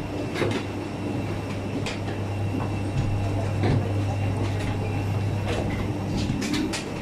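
Steady low mechanical hum inside an enclosed airport jet bridge. Scattered knocks and clicks from passengers walking off the plane through the bridge.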